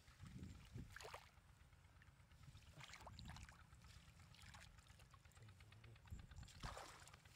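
Faint sloshing and splashing of shallow muddy water as a woven bamboo basket and hands scoop through it, in a few separate strokes, the loudest near the end.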